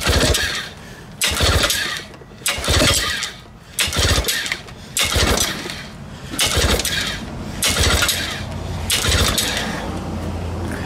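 1955 Scott Atwater 16 hp two-cylinder two-stroke outboard being rope-started: about eight pulls, one every second and a quarter or so, each setting the engine sputtering briefly. After the last pull near the end the sound holds on more steadily. The engine has just been primed by squirting fuel into the carburetor intake, and the owner suspects it may be flooded.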